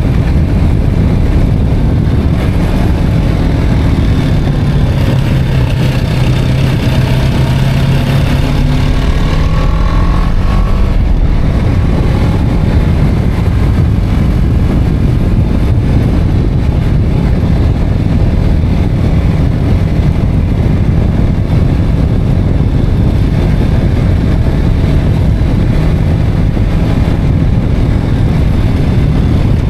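BMW G 310 R motorcycle under way: its single-cylinder engine pulls with a note that rises from about 4 to 10 seconds in, under a steady rush of wind over the microphone.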